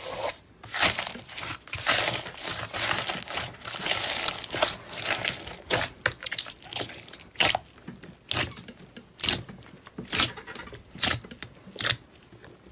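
Slime being squished and stretched by hand: dense crackling and wet clicking for the first half, then separate sharp pops about once a second.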